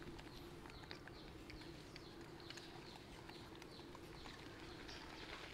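Very faint, scattered small clicks and smacks of baby macaques chewing apple pieces, over a faint steady hum; close to silence.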